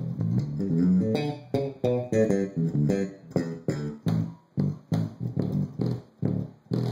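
Electric bass played through a 12-inch bass cabinet whose blown B&C 12NW76 neodymium woofer pops and crackles on the notes, a sign that the speaker is busted. The notes ring into each other at first, then turn to short separate notes about two a second.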